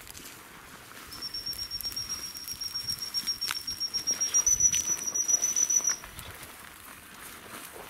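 A gundog whistle blown in one long, steady, high-pitched blast lasting about five seconds, stepping up slightly in pitch near its end: a handler's whistle signal to a working spaniel. Faint rustling of footsteps through tall dry grass runs under it.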